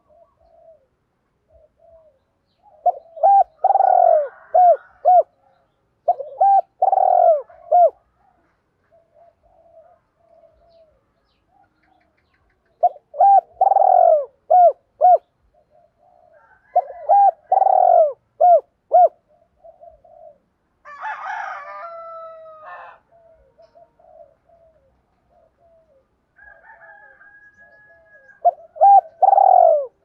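Spotted dove cooing: five phrases of a few hollow notes each, with softer coos in between. Another bird gives one longer, harsher call about two-thirds of the way through.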